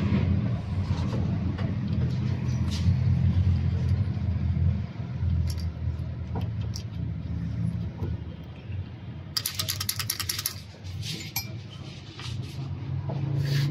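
Light metallic clinks and rattles of small diesel injection pump parts being handled and fitted, with a quick run of rapid clicks lasting about a second about two-thirds of the way in. A steady low hum runs underneath.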